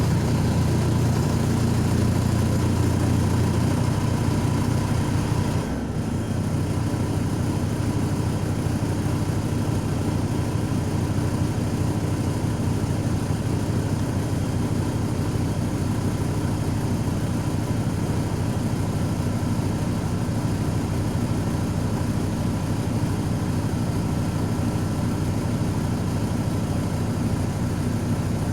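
MAZ-105 articulated city bus heard from aboard, its diesel engine running steadily with a faint high whine; the sound drops slightly about six seconds in and then holds even.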